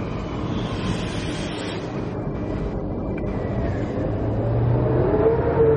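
Queensland Rail ICE electric train running in along the platform: a steady rumble of wheels on track that grows louder in the last couple of seconds, with an electric motor whine that rises in pitch and then holds.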